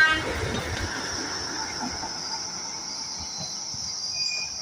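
Insects shrilling steadily in one high band, with the low rumble of the Darjeeling toy train fading out over the first second or so as its horn cuts off.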